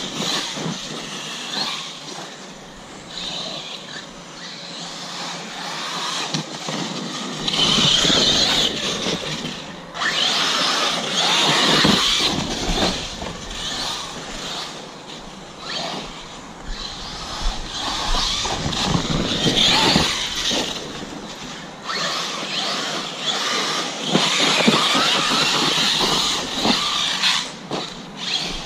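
Arrma Kraton 6S RC monster truck being driven in repeated bursts of throttle, its brushless motor and drivetrain whining up and easing off every few seconds.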